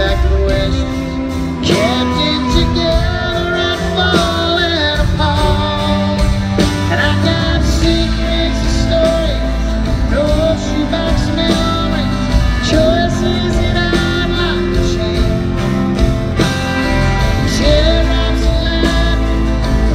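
Live country music: a male singer with strummed acoustic guitar, backed by a band.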